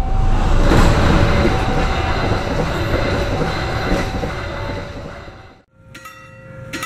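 A passenger train passing over a level crossing: a loud, steady rush and rumble of wheels on the track. The crossing's warning alarm sounds faintly underneath. The train sound cuts off abruptly near the end, and other steady tones take over.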